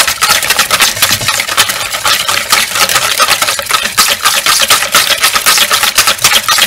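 Wire balloon whisk beating pancake batter in a bowl: a fast, steady clicking and clattering of the wires against the bowl's sides as the oil is whisked in.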